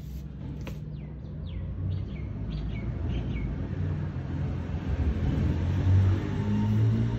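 A low rumble, like a vehicle's engine, builds and grows louder toward the end. Over it, in the first few seconds, a bird chirps a quick run of short falling notes.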